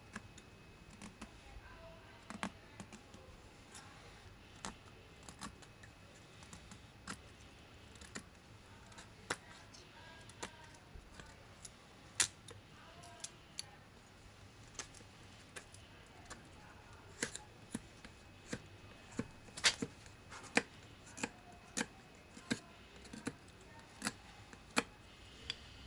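A folding knife's 9Cr18MoV steel blade chopping through sticks of wood just over an inch thick: a string of sharp knocks, about one a second at first, coming faster and louder in the second half.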